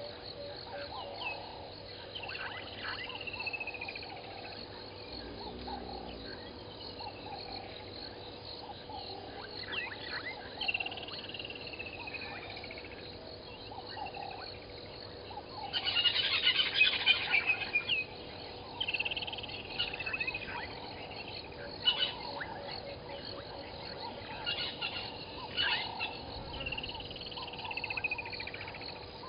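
Evening wildlife calls at a waterhole: a steady chorus of frogs and insects, with a bird's descending whistled call repeated about every eight seconds. A loud burst of high chattering calls comes about halfway through.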